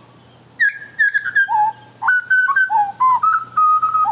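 Clear, fluty whistled notes, starting about half a second in and running on in phrases. Each note slides or steps between a few pitches, high and low.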